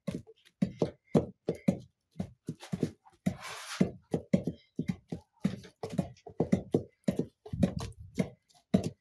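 A wooden pounding stick thudding into cooked beans and groundnuts in a clay cooking pot, mashing them to a paste: a steady run of dull thuds, two to three a second. A short hiss comes about three and a half seconds in.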